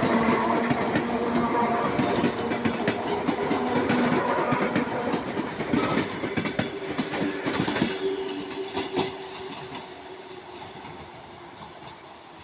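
Wheels of an ER2K electric multiple unit knocking over rail joints, a fast run of clickety-clack with a steady whine underneath, dying away over the last few seconds.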